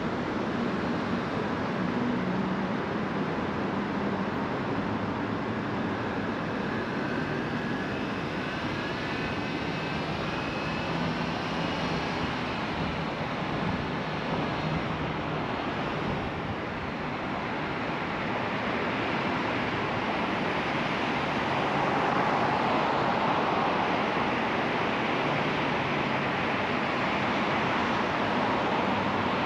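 Steady road and engine noise of a car driving through city streets, with a faint whine gliding up and down in the first half. It grows a little louder a little past the middle.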